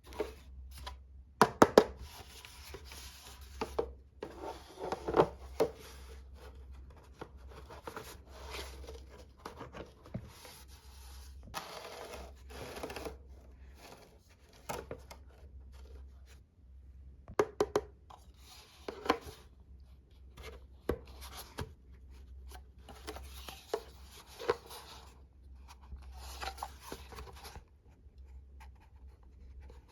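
Hands opening toy packaging: irregular rustling and tearing with sharp clicks and taps, the loudest clicks about two seconds in.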